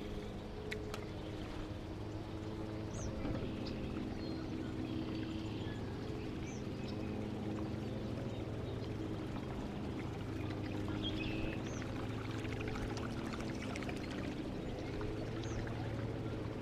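Minn Kota electric trolling motor running with a steady low hum, with water trickling and splashing around the boat.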